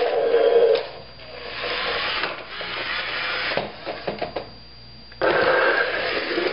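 Remote-control Buzz Lightyear toy making electronic sound effects through its small speaker: loud buzzing bursts. The first stops about a second in, a few clicks come around four seconds in, and a new burst with a steady high tone starts just after five seconds.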